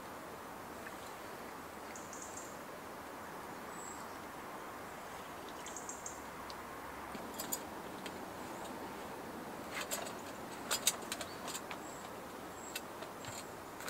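Faint, short high bird chirps now and then over a steady soft hiss, with a cluster of sharp clicks and knocks about ten seconds in.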